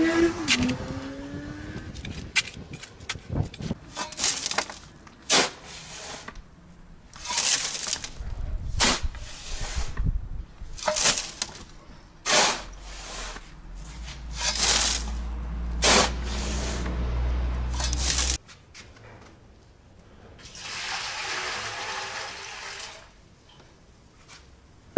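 Shovel scooping gravel and tipping it into a metal wheelbarrow tub: repeated scrapes and rattling pours every second or two. Near the end comes a steadier rush lasting a couple of seconds.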